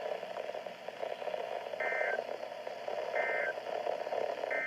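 NOAA Weather Radio end-of-message data bursts: three short two-tone digital bursts, about a third of a second each and about 1.4 s apart, over steady radio hiss. They mark the end of a warning broadcast.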